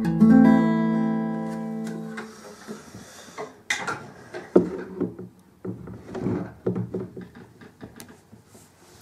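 An acoustic guitar's final strummed chord ringing out and fading over about two and a half seconds. It is followed by irregular rustling, knocks and clicks as the guitar is set down and a computer mouse is handled.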